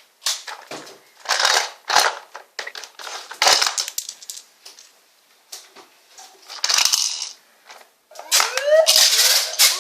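Electronic sound effect through a toy's small speaker: a string of harsh, crackling noise bursts, the Octonauts Octo-Lab playset's undersea-volcano eruption effect. Near the end a rising, repeating alarm-like whoop begins.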